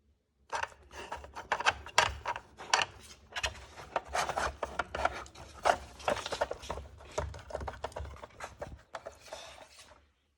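A dog puzzle toy being worked by a puppy: many quick scrapes and clicks of its pieces being pushed and rubbed. They start about half a second in and stop shortly before the end.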